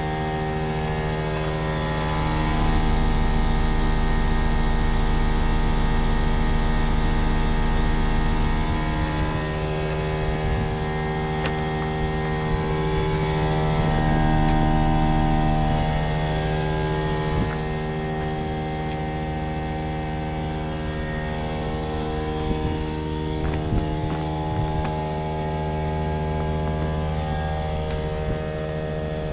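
Trane XV18 heat pump running with a loud humming drone made of many steady tones. Several of the tones slide up and down in pitch, and the sound swells louder twice. The owner calls the unit a very noisy lemon.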